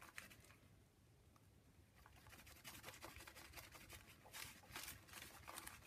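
Faint rubbing and soft scraping of fingers smearing wet paint across a paper journal page, in irregular strokes from about two seconds in.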